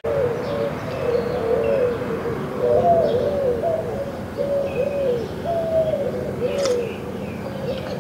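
Doves cooing over and over: short rising-and-falling coos follow one another, with a few faint higher chirps from small birds.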